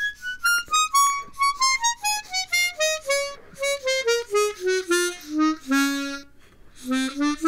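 Hohner ACE 48 12-hole chromatic harmonica played softly, one note at a time, stepping down the scale at about three or four notes a second from high notes to the lowest ones, then starting back up near the end.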